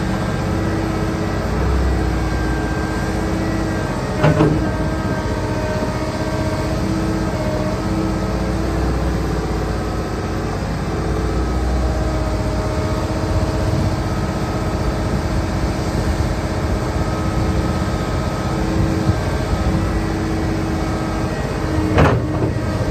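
Komatsu PC600LC-8 excavator's six-cylinder diesel engine running under load with a steady hydraulic whine as the boom, arm and bucket are worked. Two sharp clunks sound, one about four seconds in and one near the end.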